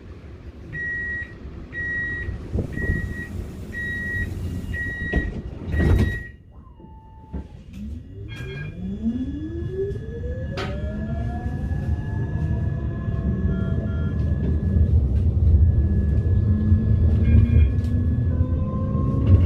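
Tram door warning beeps, about one a second, ending as the sliding doors shut with a thud. The tram then pulls away, its electric motor whine rising steadily in pitch over a growing rumble as it accelerates.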